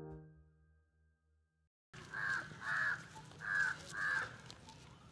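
The tail of a ringing music note fades out, then after a second of silence crows caw in the open, four harsh caws in two pairs.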